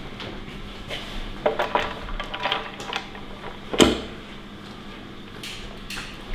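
Light clicks and knocks as the valve cover of a Mercedes OM648 engine is handled and set down onto the cylinder head, with one solid clunk a little before four seconds in.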